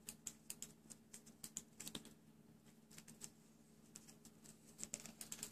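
Faint, irregular little ticks and clicks of thin 28-gauge Kanthal wire and a cardboard wire card being handled as the loose wire end is tucked back onto the card. The ticks come thickest at the start and again near the end, over a faint steady hum.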